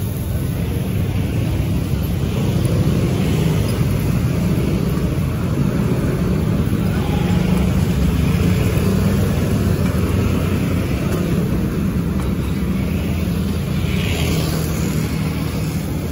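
Steady low rumble of road traffic, with motorbikes and cars running past.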